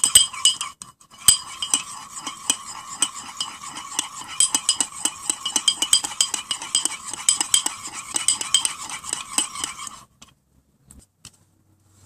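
Metal spoon beating a raw egg in a ceramic or glass dish, rapid clinks of the spoon against the sides, each one setting the dish ringing. A short pause about a second in, then the beating stops about ten seconds in.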